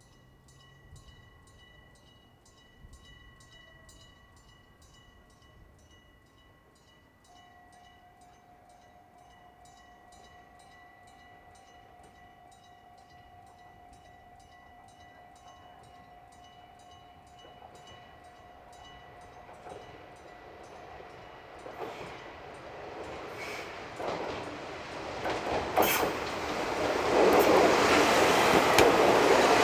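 A level-crossing warning bell rings with a fast, even stroke while a two-car KiHa 40 diesel railcar train approaches. From about 18 seconds in, the engine and wheel noise grows steadily, and the train is passing close and loud near the end, with sharp knocks of wheels over rail joints.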